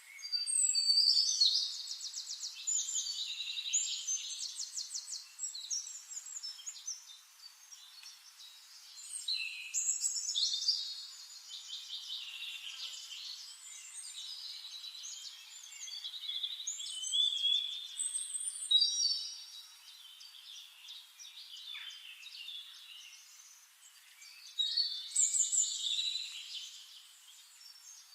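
Songbirds singing in a forest: loud phrases of rapid, high trills every several seconds, with quieter chirping between them.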